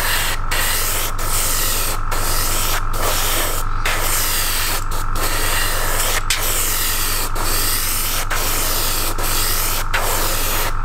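Airbrush spraying thickened Stynylrez primer: a steady hiss of air and paint that catches and breaks off briefly about once a second as it struggles and spits, because the primer has gone very thick. A steady low hum runs underneath.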